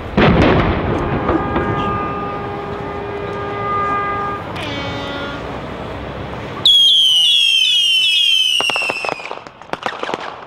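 A cannon salute fires with a single loud bang. It is followed by a boat horn sounding a steady chord for about three seconds, ending in a short falling sweep. Past the middle a burst of high, falling whistles starts suddenly and breaks into a quick run of sharp cracks near the end.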